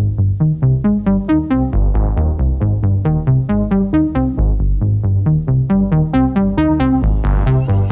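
Electronic intro music: fast pulsing synthesizer notes, about five or six a second, over a heavy bass line.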